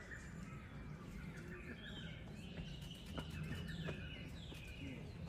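Birds chirping in short high calls, some stepping down in pitch, over a steady low background hum.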